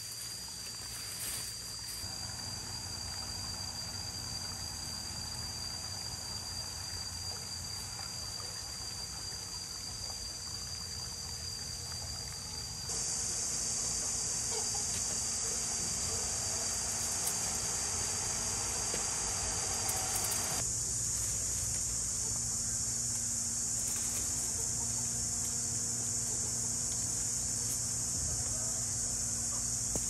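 Steady outdoor ambience: an even hiss with a constant high-pitched drone. It steps abruptly louder about 13 seconds in and shifts again about 21 seconds in.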